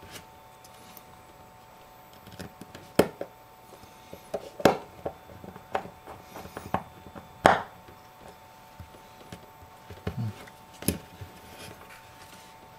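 Irregular sharp clicks and light knocks from small iPhone 5 screen-assembly parts being handled, pressed together and set down by hand, with a few louder clicks among many softer ones.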